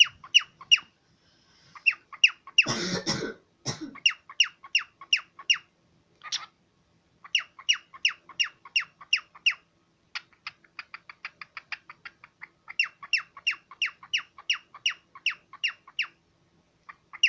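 Cockatiel giving rapid, repeated shrill calls, about three a second, in runs broken by short pauses. There is a brief rustling noise about three seconds in.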